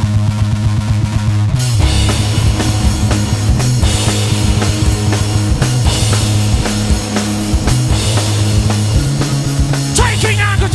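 Live post-punk rock band playing loudly: a driving guitar-and-bass riff, with the full drum kit and cymbals coming in about two seconds in.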